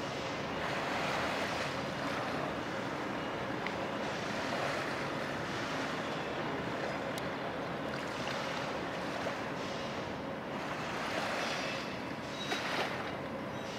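Steady hiss of wind and lapping water with no distinct events.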